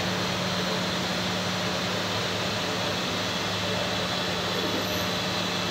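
Tsugami M50SYE-III CNC lathe running: a steady machine hum with a constant low tone under an even hiss.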